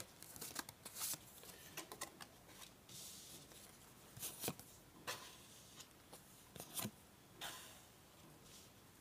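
Oracle cards being handled: faint rustles and light clicks as cards are drawn from the deck and laid down on a cloth mat, in several separate touches.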